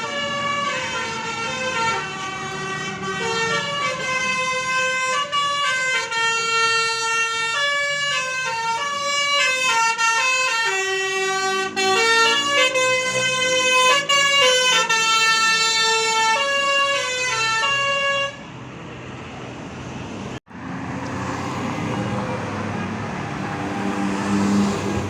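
Telolet bus horn, a multi-note musical air horn, playing a melody of stepping notes and chords for about eighteen seconds. It then stops, leaving quieter background noise.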